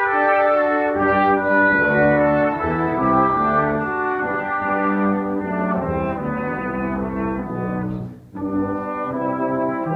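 Brass ensemble with trumpet and tuba playing a piece, several parts held in harmony, with a short break about eight seconds in before the playing picks up again.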